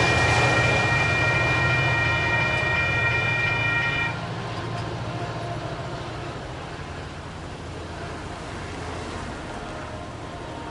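Railroad crossing bell ringing steadily and cutting off about four seconds in, as the crossing clears and the gates start to lift. Underneath, a low train rumble fades away.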